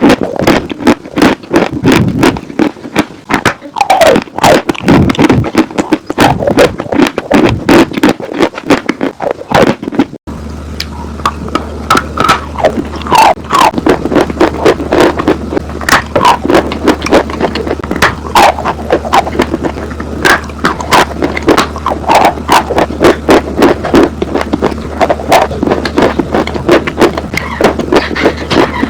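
Close-miked crunching and chewing of dry chalk and clay: rapid, irregular crackly crunches. A steady low hum comes in underneath after a cut about ten seconds in.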